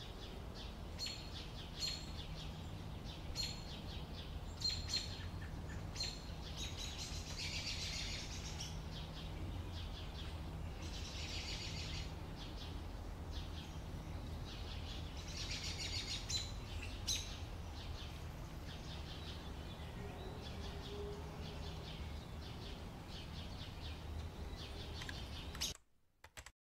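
Small birds chirping: short high chirps about once a second at first, then rapid trills three times, over a steady low hum. The sound cuts off suddenly near the end.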